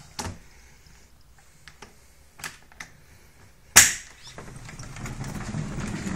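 A door being worked at: a few light clicks and taps, a sharp knock about four seconds in, then a couple of seconds of low scraping and rattling as it moves.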